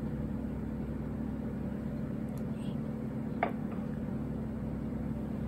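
A steady low mechanical hum, with a single light tap about three and a half seconds in.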